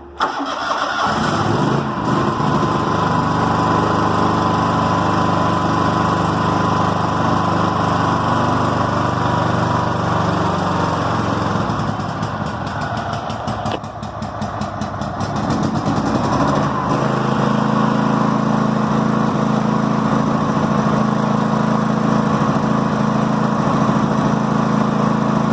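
Toro Wheel Horse garden tractor engine starting up and running. Its speed sags and wavers midway, then it runs steadily at a higher speed. It is run to test the charging circuit, which the owner suspects is not charging the battery.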